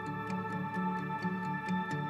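Background music: sustained held notes over a low, stepping bass line, with a light ticking beat.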